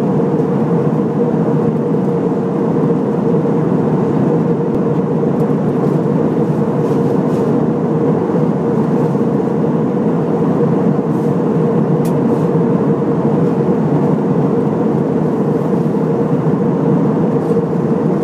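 Airliner cabin noise in flight: a steady rushing drone of engines and airflow, with a constant hum running through it.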